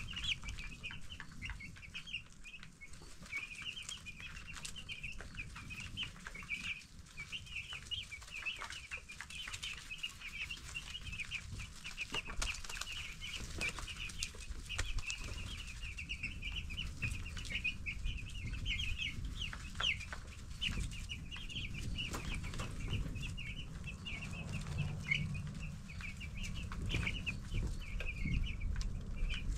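A brood of 10-day-old broiler chicks peeping without pause, many short high chirps overlapping, with scattered light clicks and a low steady rumble underneath.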